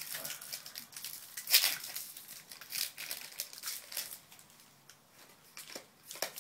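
Foil booster-pack wrapper crinkling and crackling as it is torn open and handled, the loudest crackle about a second and a half in. Softer rustling of the cards being handled near the end.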